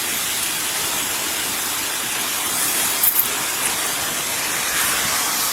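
Steady, even hiss with no clear source, with a faint click about three seconds in.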